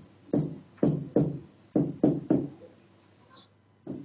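A pen knocking against an interactive whiteboard while drawing and writing: about seven short knocks in the first two and a half seconds, each ringing briefly, then a quieter stretch near the end.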